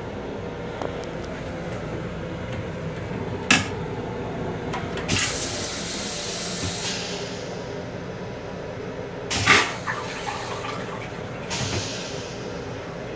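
A Long Island Rail Road M7 railcar toilet flushing. There is a sharp clack about three and a half seconds in, then a loud hiss of rinse water for about two seconds, then another loud burst near ten seconds and a shorter hiss a moment later, all over the steady rumble of the railcar.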